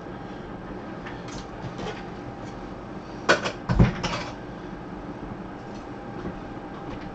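Cardboard card boxes being handled on a tabletop: a few sharp knocks and a dull thump about three and a half seconds in, over a faint steady hum.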